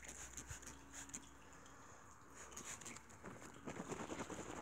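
Faint rustling and light tapping of hand work on car paint as a second coat of waterless car wash is applied with a microfiber cloth, with a denser burst of rubbing near the end.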